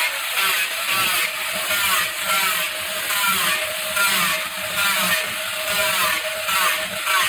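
Handheld angle grinder with a red sanding disc running along the edge of a laminated plywood door, grinding off and finishing the laminate edge. The motor runs steadily while a grinding rasp with a wavering pitch comes and goes about twice a second as the disc is worked along the edge.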